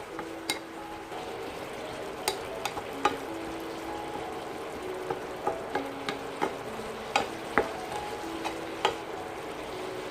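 Mixed vegetables being stir-fried in a pan, with a steady sizzle and a spatula knocking and scraping against the pan at irregular moments, about a dozen sharp clicks. Soft background music plays underneath.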